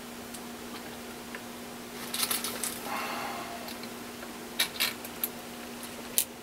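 Small metal clicks and clinks of battery-terminal hardware being worked by hand as a cable is fastened at the battery bank, coming in short clusters a couple of seconds in, around five seconds in and near the end, over a faint steady hum.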